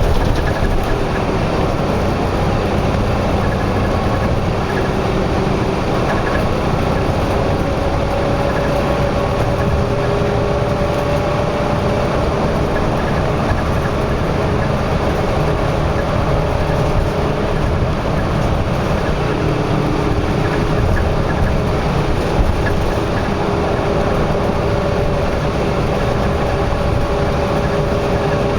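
Steady road noise of vehicles on a highway: continuous tyre and engine rumble, with faint drifting engine tones.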